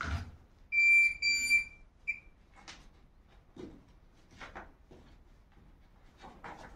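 Metal detector giving two short beeps at the same high pitch, then a brief third chirp, signalling a metal target in the floor. A few faint scrapes and knocks follow.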